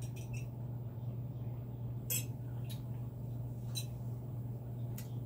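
Eating sounds: pizza being chewed, with a few short sharp mouth clicks and smacks, the loudest about two seconds in. A steady low hum sits under it.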